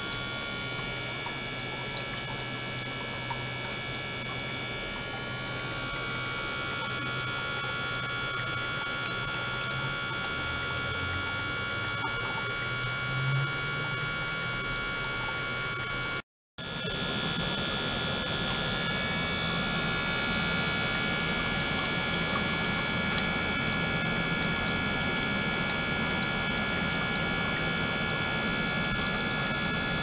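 Ultrasonic apparatus running on a water-filled glass flask: a steady electrical hum with several high, steady whining tones and hiss. The sound cuts out for a moment past halfway and resumes a little louder, with its high tones changed.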